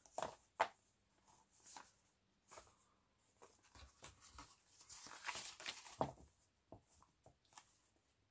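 Pages of a small children's picture book being handled and set down: soft paper rustles and light clicks and taps, with a sharper click about half a second in and a longer rustle near the middle.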